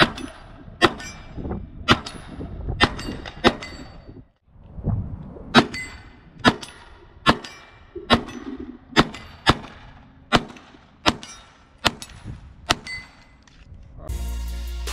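Glock 44 .22LR pistol fired at a steady pace, about twenty sharp cracks with short ringing tails, roughly one every half second to a second, with a short break about four seconds in. Music with a drum beat comes in just before the end.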